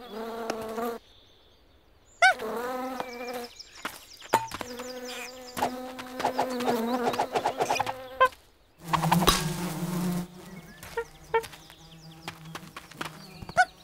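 Cartoon bee buzzing, a steady drone through the middle of the stretch. Around it come a cartoon monkey's short bending cries, a rush of noise about nine seconds in, and a few knocks near the end.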